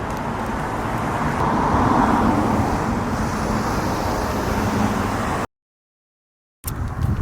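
Steady engine and road noise of a moving car. It drops out abruptly to dead silence about five and a half seconds in for about a second, then resumes.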